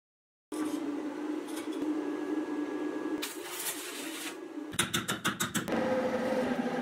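Workshop machine sounds cut together: a steady motor hum, then about a second of rapid, sharp crackling from arc welding, then a drill press motor running steadily as its bit drills through thin metal plate.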